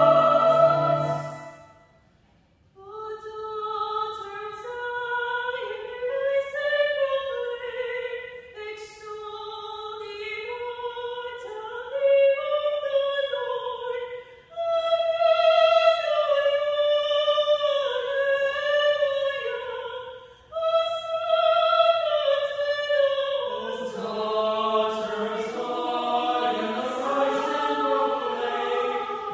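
Mixed choir singing a cappella. A full chord ends about two seconds in, and after a brief pause the higher voices sing on their own; the lower voices come back in near the end.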